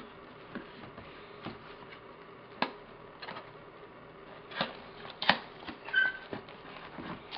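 Hands rummaging in a cardboard box, with light rustling of cardboard and packaging and a few sharp taps and knocks, the loudest about five seconds in; a brief squeak about six seconds in.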